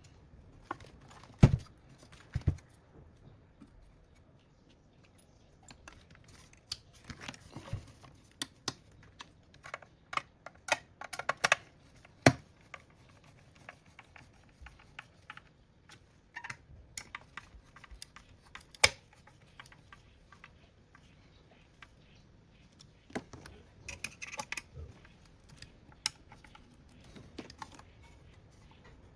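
Irregular clicks, taps and knocks of small parts and tools being handled in assembly work, coming in loose clusters. The loudest knocks come about a second and a half in and about twelve seconds in.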